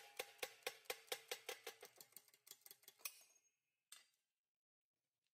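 Faint rhythmic metallic clinking with a ringing tone underneath, speeding up slightly and fading out about three seconds in. A single knock follows about a second later.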